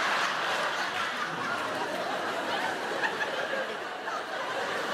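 Theatre audience laughing, the laughter easing off slightly towards the end.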